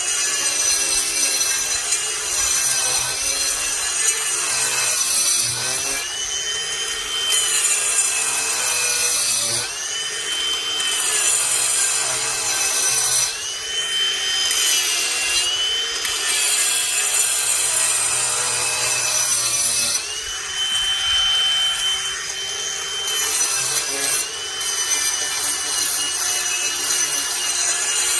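Ryobi cordless brushless angle grinder with a diamond wheel grinding down a raised concrete slab edge: a steady high motor whine over harsh grinding noise. The whine dips in pitch each time the wheel is pressed into the concrete and climbs back as the pressure eases, several times over.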